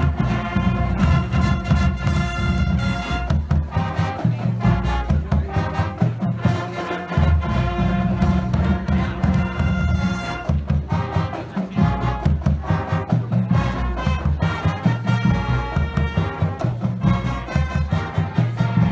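Live marching band playing a brass-led tune, horns carrying the melody over heavy low brass and a steady pulsing beat.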